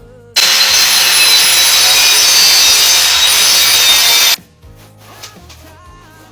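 Power saw cutting through a wooden panel, running loud and steady for about four seconds, then stopping abruptly.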